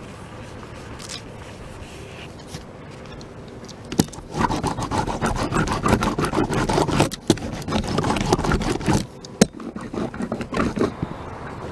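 A hand seam roller rolled over freshly laid EternaBond roof seal tape on an RV roof: a scraping, crackling rumble that starts about four seconds in and breaks into shorter spurts near the end.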